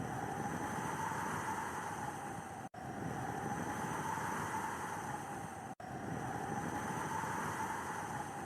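Steady snowstorm wind with a faint whistling tone. It cuts out to silence for a split second twice.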